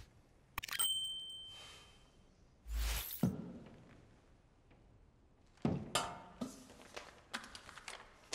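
A single sharp strike rings out as a bright chime half a second in and fades over about a second and a half. A duller thud with a low boom follows near three seconds. In the last few seconds comes a run of quick taps and steps on a hard floor.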